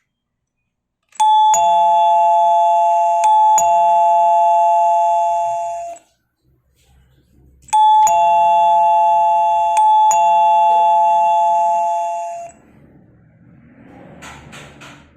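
Doorbell chime ringing a two-note ding-dong, high then low, twice over. In each ring the pair is struck again about two seconds in and held steadily for about five seconds before cutting off.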